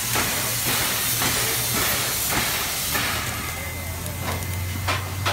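Steam locomotive hissing steam up close. The hiss is strongest at first and eases after a few seconds, broken by a few short, sharp sounds. A steady low hum comes up in the second half.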